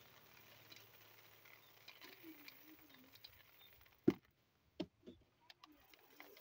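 Dry beans trickling and pattering down onto a tarpaulin as they are poured from a basin held overhead to winnow them. Faint scattered ticks throughout, with two sharper knocks about four and five seconds in.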